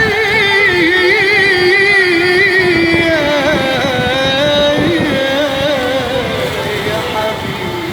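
Music: the instrumental interlude of an Arabic song, a single melody line wavering with heavy vibrato over a dense accompaniment.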